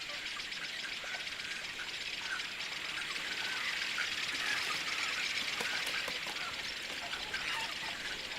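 Dense chorus of many birds chirping and calling together at a nesting colony, a continuous overlapping chatter that swells a little about halfway through.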